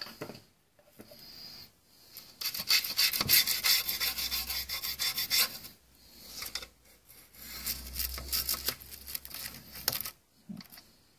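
Fast back-and-forth scrubbing inside a MAK-90 rifle's steel receiver, working under the rails, in two spells of rapid scratchy strokes with a short pause between them.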